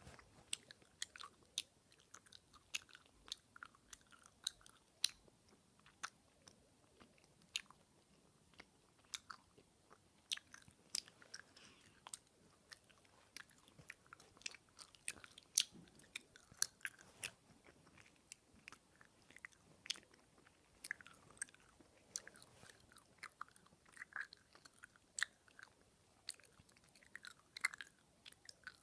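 A person chewing gum close to the microphone: wet, irregular smacks and clicks, about one or two a second.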